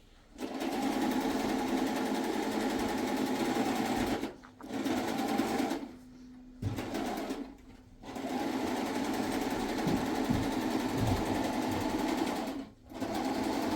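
A small electric machine motor running in stop-start runs: it starts about half a second in, runs steadily for several seconds at a time, and stops briefly four times before starting again.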